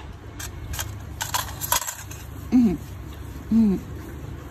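Steel nail-care tools clicking and clinking against each other several times in quick succession, followed by two short voiced sounds from a person, each rising then falling in pitch, which are the loudest sounds here.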